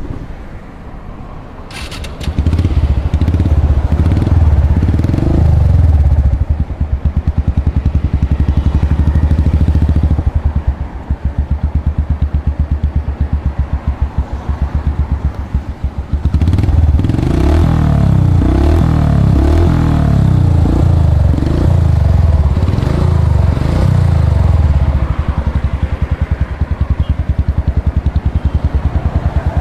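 Yamaha FZ16's single-cylinder four-stroke engine through a custom free-flow exhaust, loud and pulsing. It is revved in repeated throttle blips from about two to ten seconds in and again from about sixteen to twenty-five seconds in, dropping back to a lumpy idle in between and at the end.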